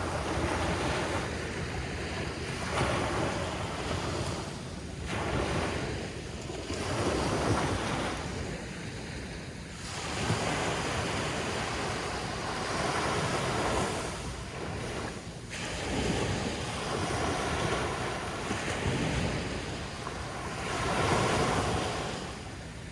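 Ocean surf breaking on a beach, each wave swelling and washing in every few seconds, with wind rumbling on the microphone.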